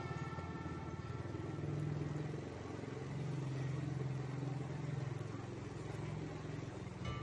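Motorcycle engine running, a steady low hum that rises and falls slightly in pitch.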